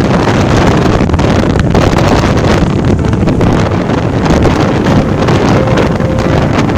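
Heavy wind buffeting the microphone in the open cockpit of a microlight trike on its landing approach to a runway, with the trike's engine running underneath.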